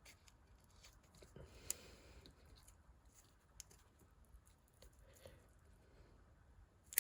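Near silence with a few faint, short clicks and rustles of a nylon watch strap being handled and threaded through.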